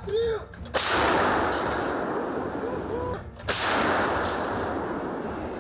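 Self-propelled howitzer firing twice, about three seconds apart. Each shot is a sudden loud blast with a long, slowly fading rumble. A brief shout is heard between the shots.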